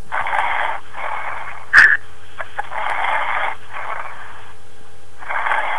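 A sleeping person's snoring heard over a telephone line: a harsh, hissing breath about every two and a half seconds, some in two parts. A short sharp click about two seconds in is the loudest sound.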